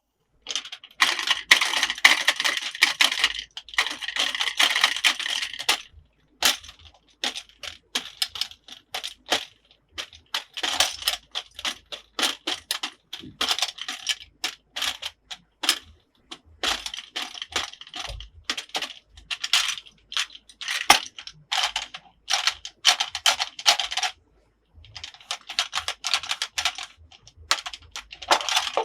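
Small hard plastic toy pieces handled and clattering together: rapid runs of clicks and rattles in bursts of a second or more, with short pauses between.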